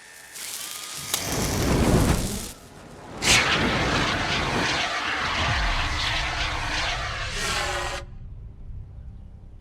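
Film sound effects of a fire in a booby-trapped room: a whoosh swells to a peak about two seconds in, then a sudden loud rush of noise bursts in and runs on until it cuts off abruptly about eight seconds in.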